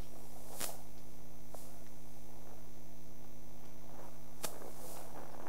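Steady electrical mains hum over room tone, with a few sharp clicks, the loudest about half a second in and about four and a half seconds in.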